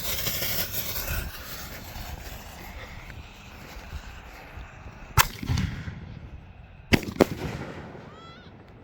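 Fireworks: a burst of hiss and crackle that fades over the first second or so, then sharp bangs about five seconds in and twice in quick succession near seven seconds.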